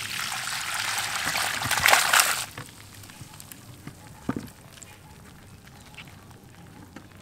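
Water splashing and sloshing for about two and a half seconds, then stopping abruptly, followed by a single soft knock a little past four seconds in.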